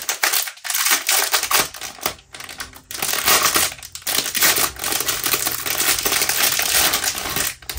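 Clear plastic packaging bag crinkling and crackling as it is handled and pulled open, in a dense run of small crackles with a few short pauses.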